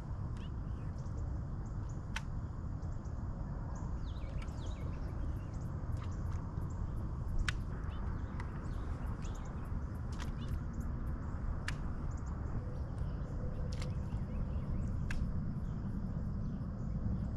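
Birds calling over a steady low rumble, with a sharp click every few seconds.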